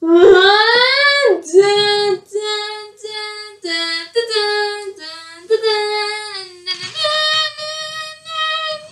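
A young voice singing a tune solo: a rising swoop, then a string of held notes.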